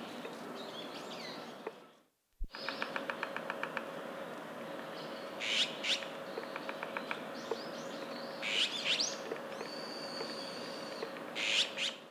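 Japanese pygmy woodpecker at its freshly dug nest hole: a quick run of taps, about ten a second, just after a brief dropout about two seconds in, then several short squeaky calls, with one held whistled note near the end.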